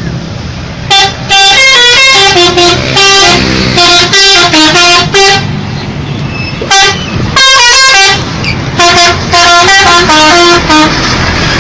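Telolet bus horn, a set of air horns playing a rapid tune of stepping notes in two runs over the rumble of the bus engine, with a hiss near the end.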